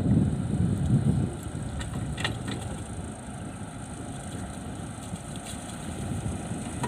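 Mini excavator's engine running with a low, steady rumble, louder for about the first second and a half and then settling lower, with a few faint clicks.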